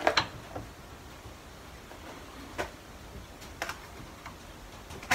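Sharp clicks and knocks of a glued melamine-and-wood test piece being worked in a metal bench vise: two close together at the start, then a few single knocks spread out.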